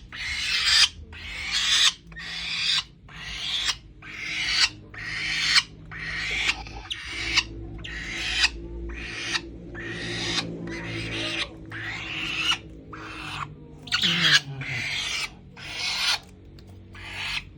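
A falcon giving harsh, raspy hissing calls over and over, about one a second, each swelling and then cutting off.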